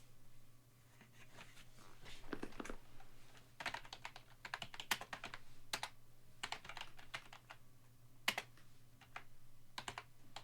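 Typing on a computer keyboard, irregular runs of key clicks, as a card is entered into a spreadsheet, over a faint steady low hum.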